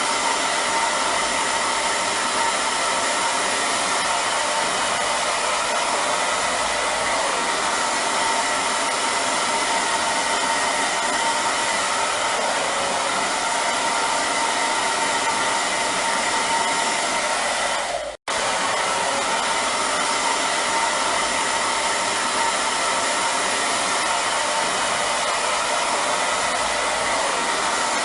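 Hair dryer running steadily: a constant rush of air with a faint motor whine in it. The sound drops out for a split second about eighteen seconds in, then resumes at the same level.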